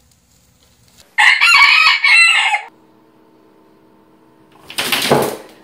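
A rooster crows once, a loud cock-a-doodle-doo about a second and a half long, starting about a second in. Near the end comes a short, loud rush of noise.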